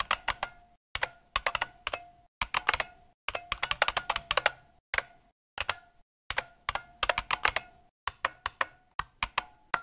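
Computer keyboard typing: quick flurries of sharp key clicks broken by short pauses, as a line of code is typed out.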